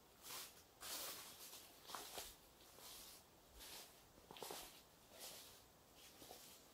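Faint footsteps crunching through dry fallen leaves and pine needles on a forest trail, a soft step about every second with small crackles of leaf litter.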